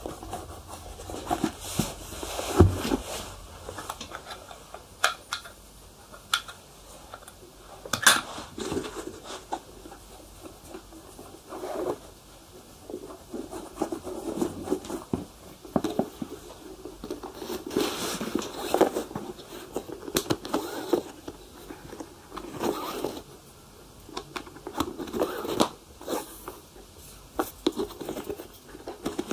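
Shoe polishing: irregular rubbing and scratching strokes on shoe leather, with scattered sharp clicks.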